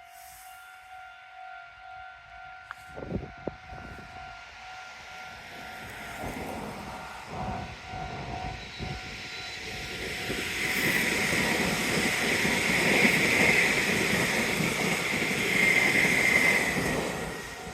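Japanese level-crossing warning bell ringing its steady electronic "kan-kan" while a Meitetsu electric train approaches and passes. The train's wheel-on-rail rumble and clatter builds from about three seconds in and is loudest in the second half, with a high rail hiss on top, then begins to fade near the end.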